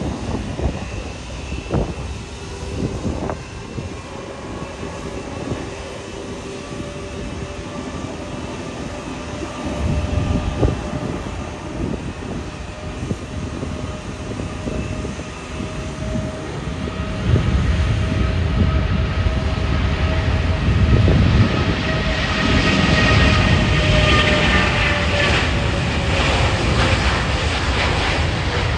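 The GE9X turbofans of a Boeing 777-9 at takeoff thrust: a steady jet whine with several held tones over a rumble. It grows much louder a little over halfway through as the airliner accelerates down the runway toward the listener. Near the end the tones dip slightly in pitch as it passes.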